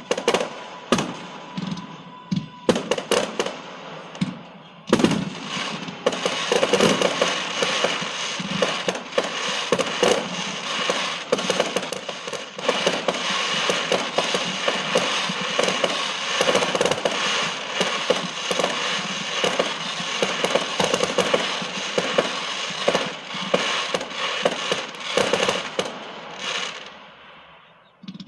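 Fireworks going off: a few separate sharp bangs at first, then from about five seconds in a dense, continuous run of rapid crackling pops, like firecracker strings, that fades away near the end.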